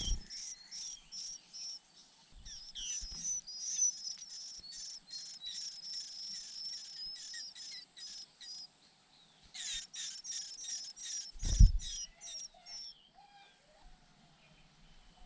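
White-eye nestlings chirping, short high calls repeated about three or four times a second, with a short break and then stopping near the end. A loud thump about two-thirds of the way through.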